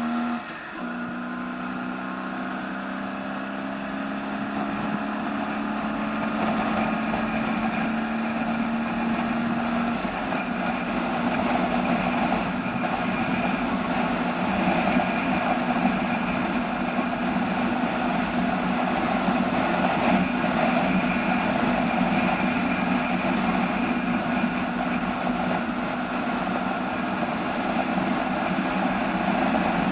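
Ural flat-twin engine in a Dnepr sidecar motorcycle with 'bomb' mufflers running under load at road speed. The engine note dips briefly just after the start, like a gear change, then holds as a steady drone that slowly gets louder. The ignition timing has been set slightly advanced, and the engine pulls well.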